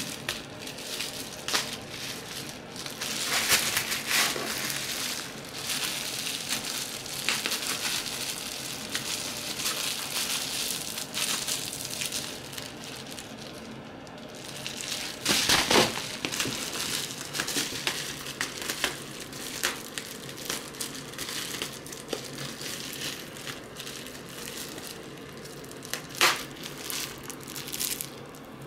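Plastic bubble wrap crinkling and rustling as it is handled and a cat bites at it, with a few louder crackles.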